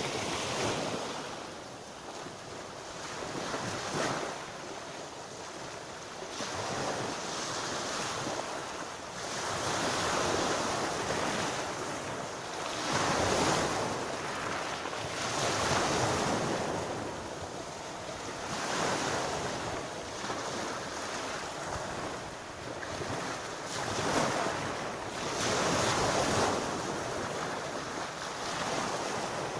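Sea waves breaking on the shore, the surf swelling and falling back every two to three seconds, with wind buffeting the microphone.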